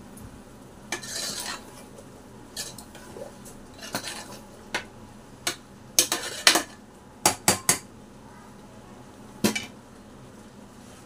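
A metal spoon stirring thick curry masala in a pressure cooker, scraping and clinking irregularly against the pot. Partway through comes a quick run of three sharp clinks.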